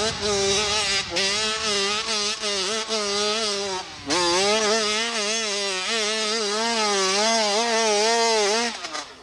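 Dirt bike engine revving hard as the bike climbs a steep loose hill, its note wavering up and down as the rear wheel digs and spins. The note dips sharply about four seconds in, picks back up, and falls away just before the end.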